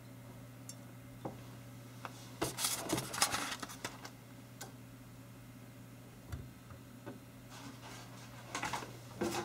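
Handling noise from unpacking a diecast model airliner: a few small clicks, then polystyrene foam packaging scraping and rustling for about a second and a half. About six seconds in there is a soft knock as the metal model is set down on a wooden desk, followed by more light rustling near the end.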